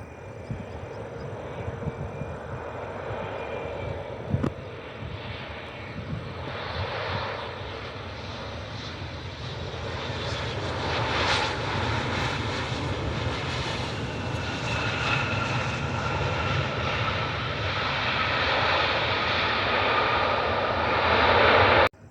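Turbofan engines of a CRJ900 regional jet on approach to land: a rushing jet noise with a faint whine that grows steadily louder, cutting off abruptly near the end.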